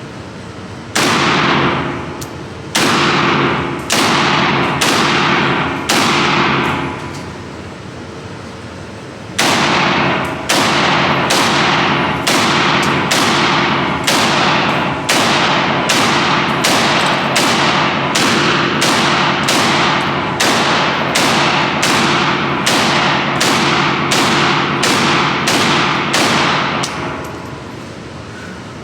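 AK rifle fired semi-automatically: five shots at uneven intervals over the first six seconds, then after a pause of about three seconds a steady string of about thirty shots at close to two a second, each with a ringing echo.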